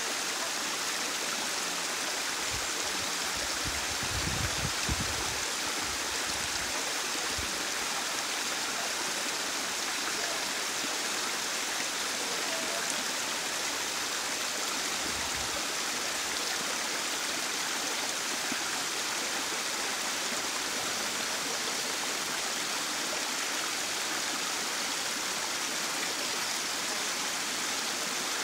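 Small waterfall pouring down a narrow rocky gully into a stony burn: a steady murmur of falling and running water. A few brief low rumbles come over it a few seconds in and again about halfway.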